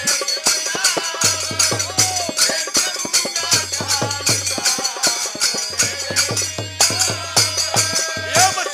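Music with a quick, steady percussion beat of sharp strokes, a bending melody line over it and a pulsing bass.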